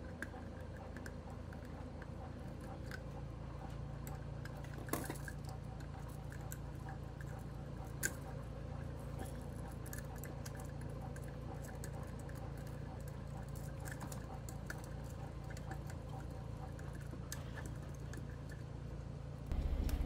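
Faint handling noises and a few light clicks, clearest about five and eight seconds in, as the copper wire ends are bent straight by hand, over a steady low hum.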